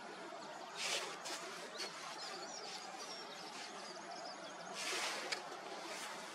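A small bird singing a fast run of high, thin notes through the middle, over steady outdoor hiss, with two brief rushes of noise, one about a second in and one about five seconds in.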